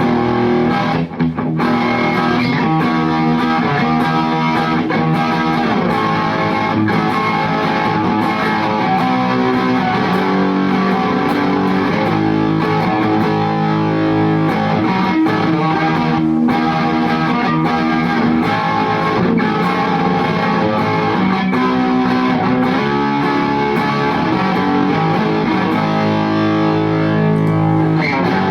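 Electric guitar (Epiphone Les Paul) played through an Orange Baby Terror amp and a 12-inch Celestion Neo speaker, with the gain raised past the clean setting for a mildly overdriven crunch tone. It is continuous playing of chords and lines, with a brief gap about a second in.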